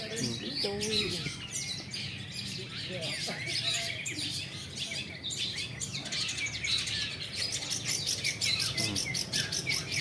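Several caged long-tailed shrikes (cendet) singing over one another in a mix of sharp chirps and whistled phrases, with a fast run of rapid repeated notes about halfway through.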